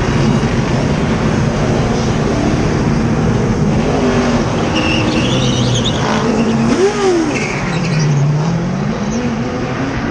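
Stock car engines running loud through a pit stop, with short high whines of the air guns on the wheel nuts. Near the end one engine's pitch drops and then climbs as a car accelerates away.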